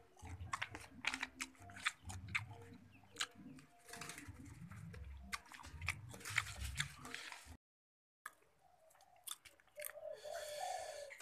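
A person chewing a mouthful of nasi padang close to the microphone, with irregular wet clicks and crunches. The sound cuts out for a moment about seven and a half seconds in, then a few softer chewing clicks follow.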